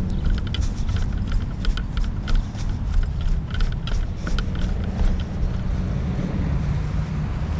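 Wind buffeting the microphone of a moving camera as a steady low rumble. An irregular run of light clicks, about three a second, stops a little past halfway.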